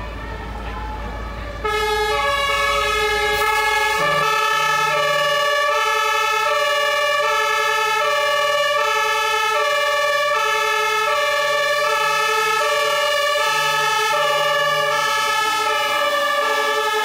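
A fire engine's two-tone siren (Martinshorn) sounding continuously, switching back and forth between a high and a low tone. It cuts in suddenly after about a second and a half of low rumble.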